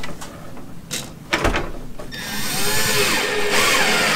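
Cordless drill driving a drywall screw into a wooden floor joist. After a few short knocks, the drill runs loud and steady from about halfway in, its pitch wavering as the screw bites into the wood.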